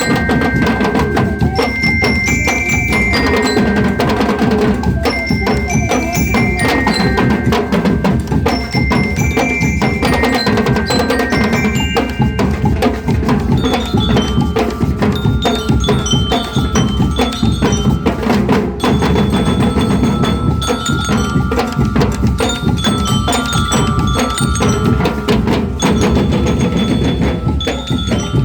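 Bell lyres (liras) playing a ringing melody in a marching band, over steady drumming.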